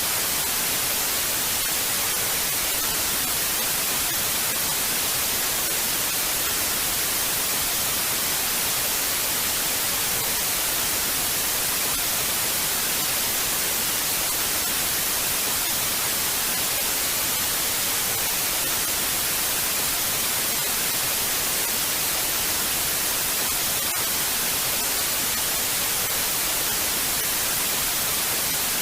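Television static: a steady, even hiss of white noise, brightest in the treble, with no change.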